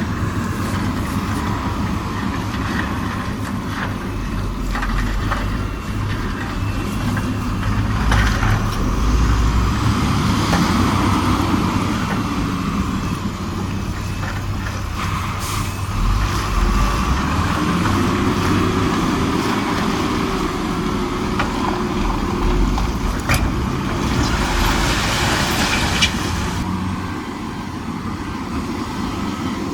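Heavy diesel machinery, a bulldozer and a dump truck, running steadily under load. A hiss of air lasts about two seconds, starting about 24 seconds in.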